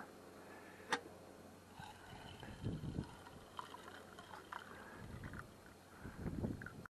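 Hot water poured from a small camping kettle into a stainless steel mug, faint gurgling and splashing, with a single metal click about a second in.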